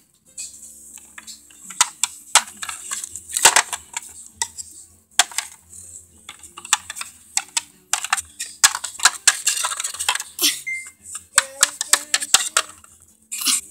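Irregular clicks, taps and clatter of small plastic toys and a plastic playset being handled and moved about, in quick runs of knocks, over quiet background music.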